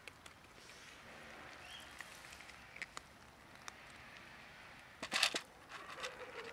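Cats crunching dry kibble from a plastic tray: scattered small crunchy clicks, with a brief louder scuffle about five seconds in.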